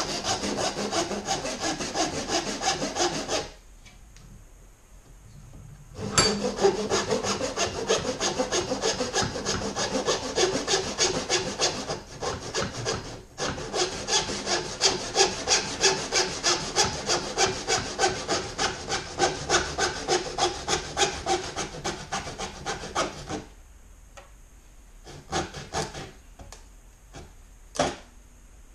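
Hand saw cutting through a wooden hatchet handle in quick, even back-and-forth strokes. The sawing pauses for a couple of seconds early on, runs on, and stops a few seconds before the end, followed by a few light knocks.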